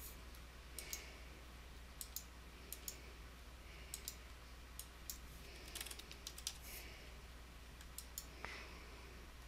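Faint clicks from a computer mouse and keyboard while an on-screen form is filled in: scattered sharp clicks, several in quick pairs, a second or so apart. A faint steady low hum sits beneath.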